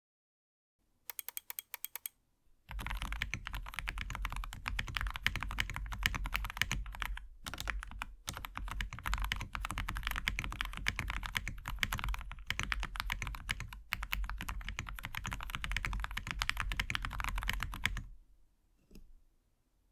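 Typing sound test on Akko Rosewood linear switches in an Akko MOD007 V3 keyboard with a polycarbonate plate and full foam. A short run of quick key presses comes first, then about fifteen seconds of fast, continuous typing with soft, muted bottom-outs, which stops a couple of seconds before the end.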